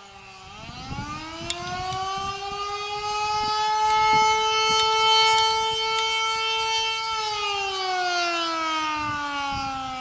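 Canadian Federal Signal Model 2 outdoor warning siren sounding the attack signal in a test. Its pitch winds up over a couple of seconds, holds steady for about four seconds, then winds back down near the end, heard from about a sixth of a mile away.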